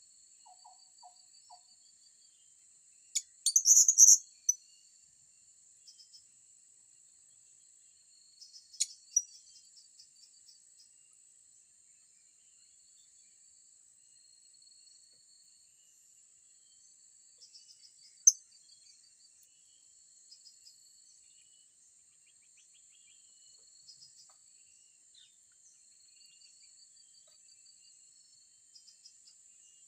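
A steady high-pitched insect drone with a fast ticking insect trill running under it. A short burst of shrill, high bird calls rises above it about three to four seconds in, with single sharp chirps again near nine and eighteen seconds.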